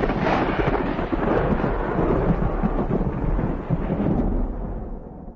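Thunder rolling in a long, loud rumble that slowly dies away and fades out near the end.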